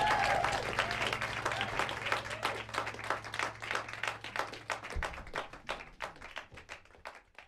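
Audience applauding at the end of a song, with a short cheer in the first second. The clapping thins out and fades away, stopping near the end.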